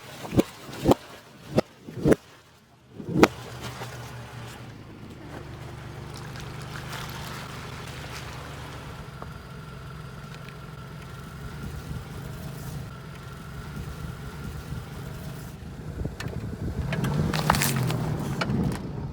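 A car's engine running slowly as its tyres crush objects, with five sharp, loud pops or cracks in the first three seconds or so. The engine then runs steadily and grows louder near the end.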